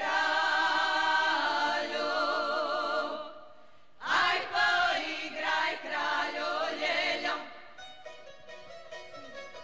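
A women's choir singing a traditional Slavonian kraljice song without accompaniment, in two sustained phrases with wavering, held notes and a short break about three seconds in. Near the end the singing stops and quiet plucked string instruments begin.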